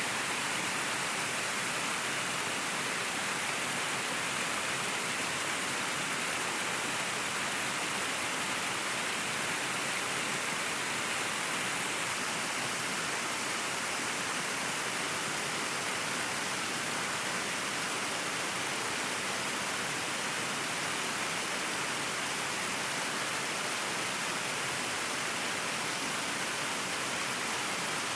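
River water flowing, a steady rushing hiss that stays even throughout.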